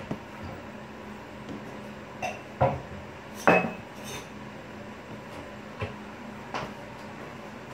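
Bread dough being kneaded by hand on a hard countertop: about six irregular knocks, some with a short clink, the loudest about three and a half seconds in.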